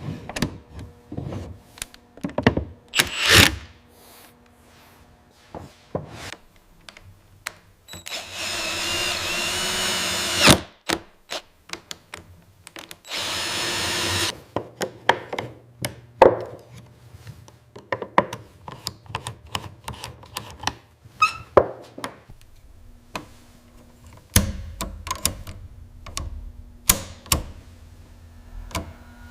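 Woodworking power tool running in two short bursts of a couple of seconds each, amid frequent knocks, taps and thunks of wood being handled and worked.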